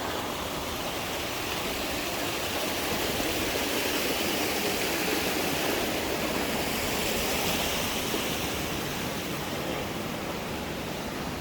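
Steady rush of river water and waterfalls, a constant noise that swells a little in the middle.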